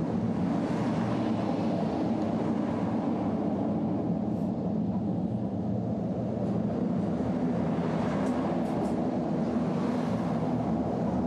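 Car tyres running over an open steel bar-grating bridge deck of heavy-duty riveted galvanized steel, a steady hum that swells as a car passes close near the end.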